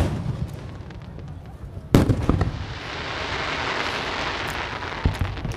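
Aerial fireworks shells bursting: one loud bang about two seconds in, followed by a long hissing crackle of the burst that swells and fades over about three seconds, with a smaller pop near the end.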